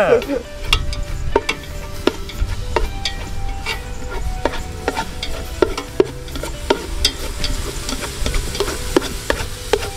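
Garlic and shallots frying in hot oil in a pan while being stirred, a steady sizzle broken by frequent sharp clicks and scrapes of the spatula against the pan. This is the aromatics being fried until fragrant, before the chicken goes in.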